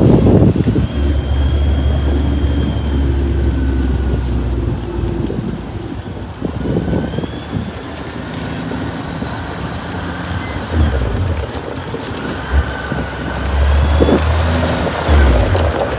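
Heavy trailer truck's diesel engine running under load with a low, steady drone, easing off in the middle and growing louder again near the end.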